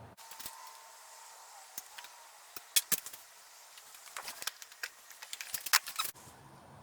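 Scattered light clicks and taps, with a few sharper knocks about three seconds in and again near six seconds.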